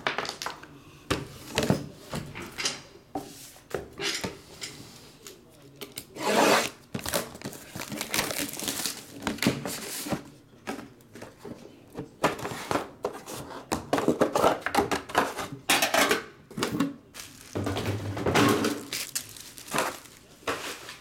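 A trading-card box being opened by hand: a cardboard sleeve slides off a metal tin, amid repeated clicks and knocks of the tin and boxes being handled and set down, with swishes of sliding packaging.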